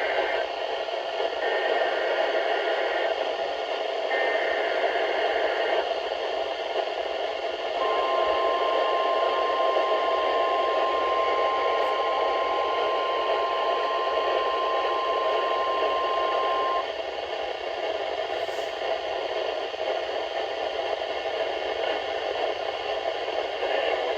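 NOAA Weather Radio required weekly test received through heavy static: three short bursts of warbling SAME data tones in the first six seconds, then a steady single-pitch warning alarm tone of about 1050 Hz lasting about nine seconds, then hiss alone.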